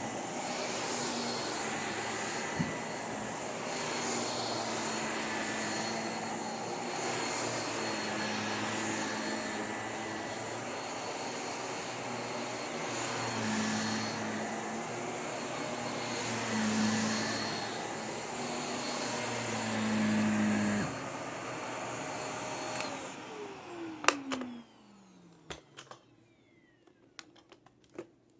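Vacuum cleaner running steadily, its pitch wavering slightly as it is worked over the floor. Near the end the motor is switched off and winds down with a falling whine, followed by a few sharp clicks.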